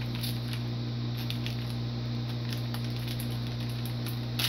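A steady low hum fills the room, with a few faint soft rustles and ticks of a candy wrapper being handled.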